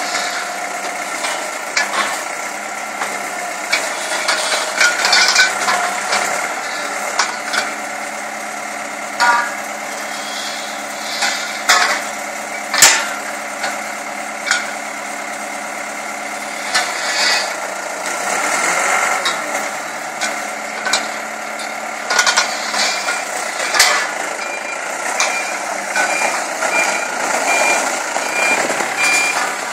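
Forklift engine running steadily as the hydraulic pipe clamp grips and lifts a bundle of steel pipes, with scattered metallic clanks, one sharp strike the loudest. Near the end a reversing beeper sounds in an even series of beeps.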